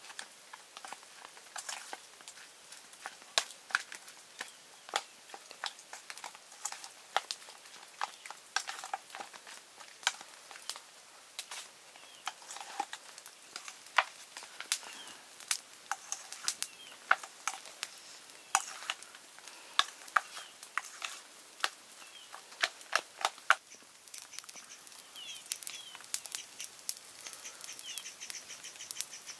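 A metal spoon clinking and scraping against a stainless-steel bowl as marinated meat is mixed, with irregular sharp clicks a few times a second. The clicking thins out about three-quarters of the way through.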